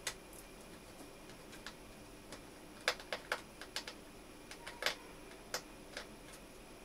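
Small Phillips screwdriver backing out a tiny screw from a laptop screen panel: scattered, irregular light clicks and ticks, with a quick cluster about three seconds in and another near five seconds.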